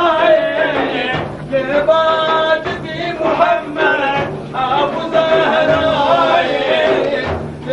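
Male voice singing a Kurdish dervish religious chant in held, melismatic phrases with brief breaks between them.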